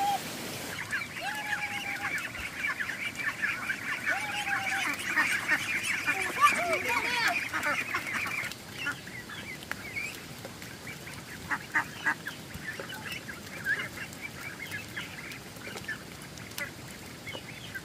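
A flock of ducks calling, a dense chattering chorus of short high calls with a few longer, lower calls mixed in, thinning out to scattered calls about halfway through.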